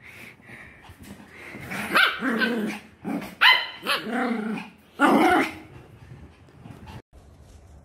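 Dogs barking and growling in play, a handful of loud barks and growls from about two to five and a half seconds in, then quieter.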